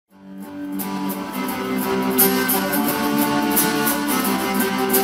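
Guitar music fading in about a fraction of a second in, then playing steadily.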